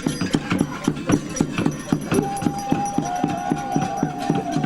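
Music with a fast, even percussive beat of about four to five strokes a second. A high held note comes in about two seconds in and wavers slightly.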